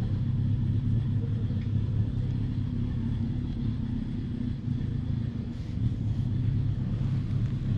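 Cat purring steadily while being stroked on the head, a continuous low rumble.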